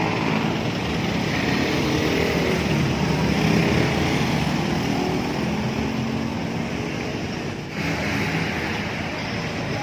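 Steady road-traffic noise: the engines of passing vehicles running as a continuous rumble, dipping briefly near the end.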